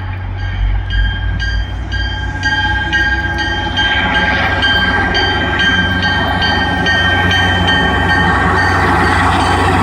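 MBTA commuter train's diesel locomotive running, its bell ringing steadily at about three strokes a second. The engine noise grows louder from about four seconds in.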